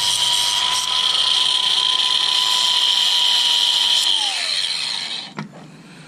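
DeWalt angle grinder running at steady full speed, then switched off about four seconds in, its whine falling in pitch as the disc spins down; a light knock follows near the end.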